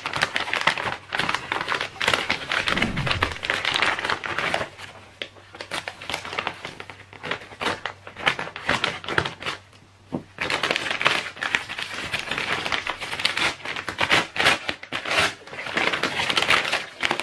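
Stiff paper mailer bag crinkling and rustling as it is cut and torn open by hand, in two busy spells with a quieter stretch of about five seconds in the middle.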